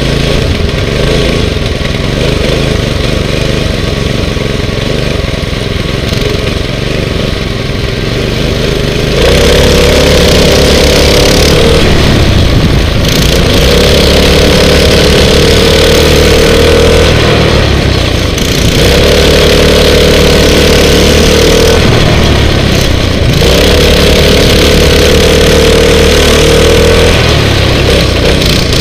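Racing kart engines at speed, heard from on board one kart. For the first third the note is lower and uneven; after that it rises four times to a steady high pitch, held for a few seconds each time, and drops between, as the throttle is held on the straights and lifted for the turns.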